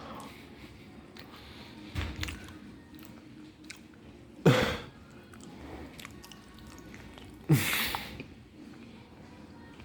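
Whirlpool 6th Sense dishwasher on its wash cycle, water sloshing and spraying inside: a dull thump about two seconds in, then two loud whooshing surges, each starting with a falling thud, about three seconds apart.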